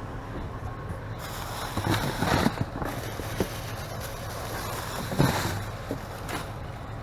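Hands rummaging through a trash bag full of paper receipts: rustling and crinkling of paper and plastic in irregular bursts, loudest about two seconds in and again around five seconds in, over a steady low rumble.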